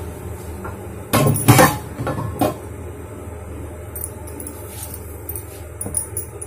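A rolling pin clattering and knocking against a board as it is picked up and set down: a short burst of clatter about a second in, then one sharp knock, with a few light taps near the end. A steady low hum runs underneath.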